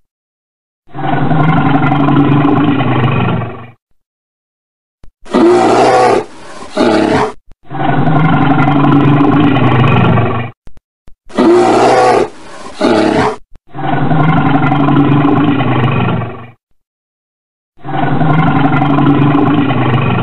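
Brown bear roaring over and over: about six deep, drawn-out roars of two to three seconds each, separated by short silences. Two of them are shorter, brighter roars from a different recording.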